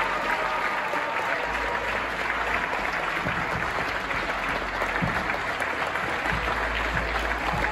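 A crowd applauding steadily, a dense patter of many hands clapping.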